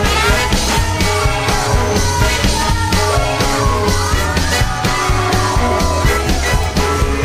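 Music with a steady beat and heavy bass.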